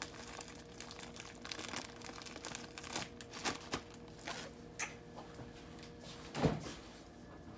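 Plastic bread bag crinkling and rustling as it is handled, in short scattered bursts, with one dull thump about six and a half seconds in.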